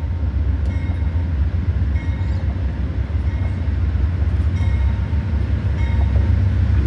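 Amtrak diesel-electric passenger locomotive approaching with its train, the engine rumbling low and steady. A bell rings about once a second over it.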